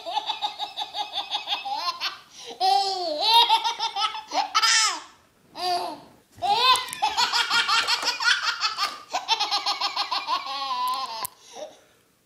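A baby belly laughing in several bursts of rapid, pulsing, high-pitched laughs with short gaps between. The last and longest run lasts about five seconds and stops about a second before the end.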